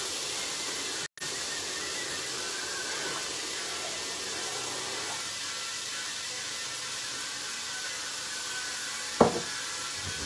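Chopped onions sizzling steadily in olive oil in an enamelled cast-iron pot as they brown. The sizzle is broken by a brief dropout about a second in, and a single sharp knock comes near the end.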